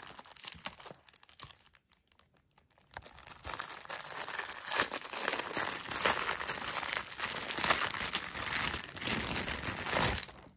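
Crinkly packaging being handled and torn open to unwrap a toy: a dense crinkling that drops away briefly about a second in, then starts again and keeps on until near the end.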